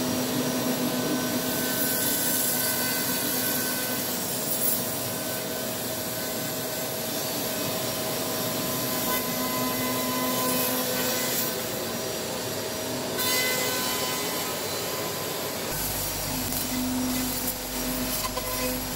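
A CNC router's 3.2 kW spindle surfacing a wood slab. The cutter makes a steady cutting noise over a few steady tones, with dust extraction drawing through the brush shoe. About two-thirds of the way in the hiss thins out and a low hum comes in.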